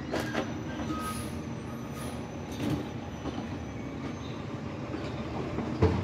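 Steady low rumble of distant traffic, with a few faint clicks and one sharp knock near the end.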